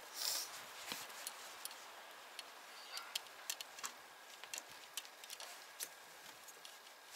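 Light handling noises from electrical wiring on a snowplough blade: scattered small clicks and ticks as the wire and cable are worked, with a brief rustle just after the start.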